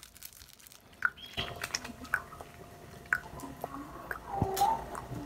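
Small plastic instant-noodle seasoning sachets being torn and squeezed out over a bowl: scattered crinkles, clicks and soft squishes, starting about a second in.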